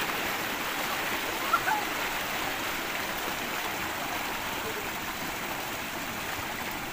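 Steady rush of water gushing from a tube-well outlet pipe into a concrete tank, with a brief sharp sound about one and a half seconds in.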